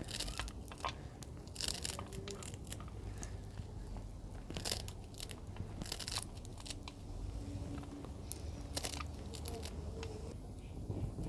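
Fresh coriander being cut with a knife over a plate: crisp crunches through the stems at irregular intervals, some louder than others.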